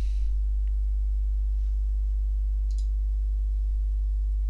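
Steady low electrical hum with a stack of even overtones, unchanging in level. A faint short tick sounds about half a second in, and another faint high tick near the middle.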